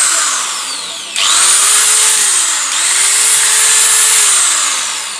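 Electric angle grinder test-run in short bursts after a carbon brush repair: its motor whines at full speed, is let off and winds down, and is switched on again twice. After the last run, about four seconds in, it is switched off and coasts down.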